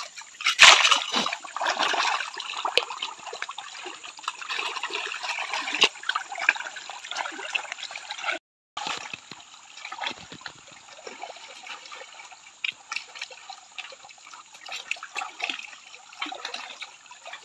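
Water sloshing and splashing as a gold pan is swirled and shaken by hand in shallow stream water, washing fine sand and mud. A louder splash comes about a second in, and the sound cuts out for a moment just past the middle.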